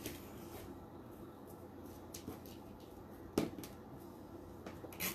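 Light clicks and rustling as hands work plastic zip ties and poly burlap petals on a plastic wreath board, with a sharper knock about three and a half seconds in and a few quick clicks near the end.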